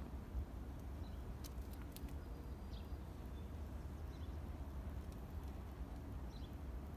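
Quiet outdoor ambience: a steady low rumble with a few faint high chirps, and two small clicks about one and a half and two seconds in.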